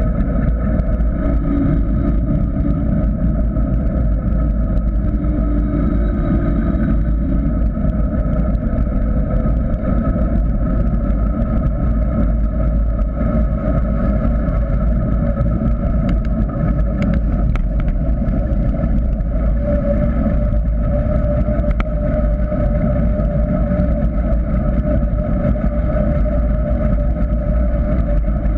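Steady rush of wind and tyre rumble picked up by a GoPro camera on a mountain bike rolling fast downhill on asphalt, with a steady whistling hum over the low noise.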